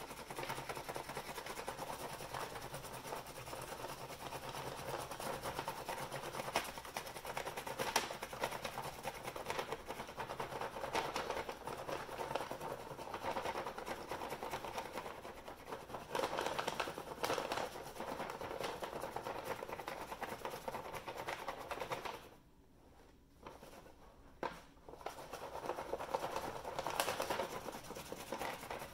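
Pencil scratching back and forth across paper pressed against a baby gate, making a texture rubbing while the paper is slid along. A brief pause a little over twenty seconds in, then the rubbing starts again.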